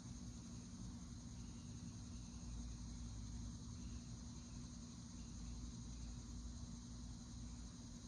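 Steady high-pitched insect chorus, continuous and unbroken, over a low steady hum.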